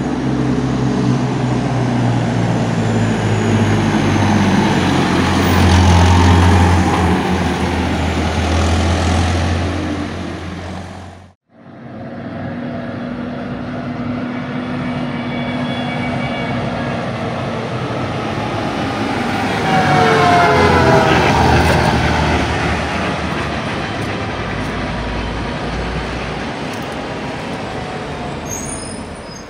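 Two farm tractors' diesel engines passing by one after the other. The first is loudest about six seconds in. The sound breaks off abruptly about a third of the way through, and the second swells up and goes by with a whine falling in pitch.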